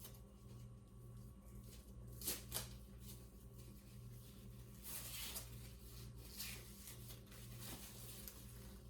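Faint rustling and crinkling as protective wrapping is pulled off a leather handbag's handles, with a few brief louder crinkles about two and a half and five seconds in.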